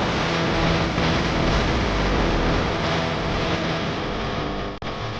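Electric motor and geared drivetrain of an RC scale crawler whirring steadily as it crawls over rock, with a brief break near the end.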